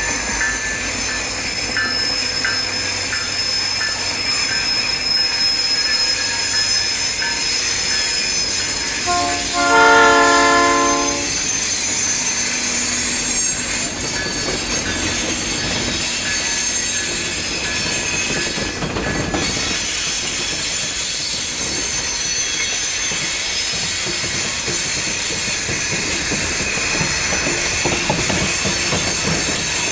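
Diesel-hauled freight train passing close by: locomotives running and a string of covered hopper cars rolling over the rails, with a high steady wheel squeal. The locomotive's multi-chime air horn blows once, for about two seconds, around ten seconds in; this is the loudest sound.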